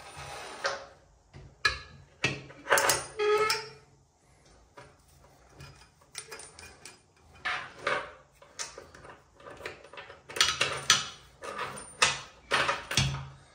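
Chrome mixer tap and its braided steel flexible hoses knocking and clattering against a ceramic basin as the hoses are fed down through the tap hole: a string of irregular clicks and knocks, some with a brief ring.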